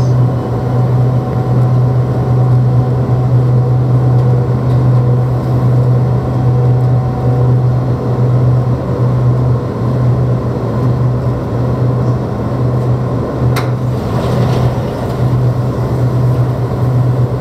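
Airport people-mover tram car running with a steady low hum as it creeps to a stop at the end of its guideway. A single sharp knock comes about thirteen and a half seconds in.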